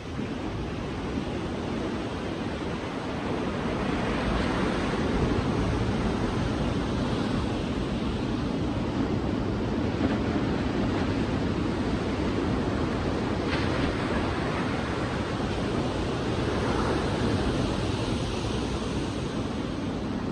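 Sea waves breaking and washing onto a beach: a steady rush of surf that rises about four seconds in and swells again near the end.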